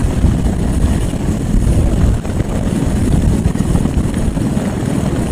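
Military helicopter hovering low, its main rotor beating in a fast, steady chop over the turbine noise.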